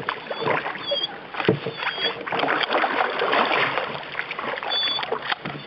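Canoe on a river being paddled: water swishing and splashing around the paddle and hull, with a few sharp knocks against the canoe.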